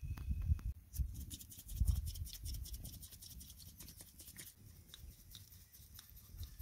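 Wood fire crackling in rapid fine clicks for a few seconds, with a low wind rumble on the microphone near the start.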